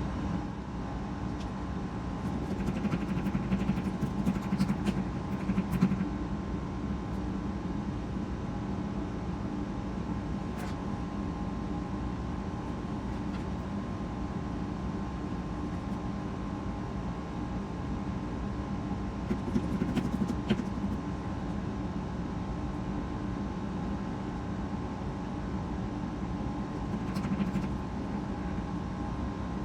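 A steady machine hum with a few brief, soft handling noises over it.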